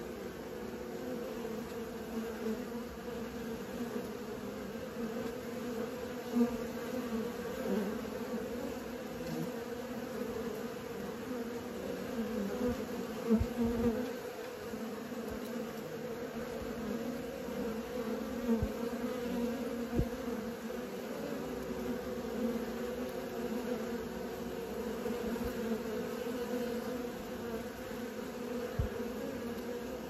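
Honeybees buzzing en masse at the hive entrance, a steady, even hum, as young bees hover and circle on orientation flights. A few soft low knocks are mixed in.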